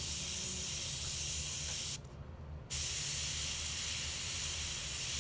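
Harder & Steenbeck Infinity airbrush spraying paint: a steady hiss of air and paint that stops for under a second about two seconds in, then starts again. A low hum runs underneath.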